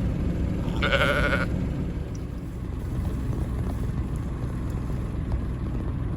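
A sheep bleats once, briefly, about a second in, over steady wind rumbling on the microphone.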